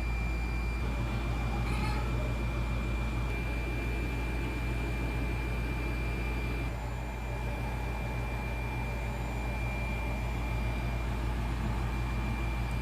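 Steady mechanical hum with a low drone and a thin, constant high-pitched whine over it, like a kitchen appliance or fan running.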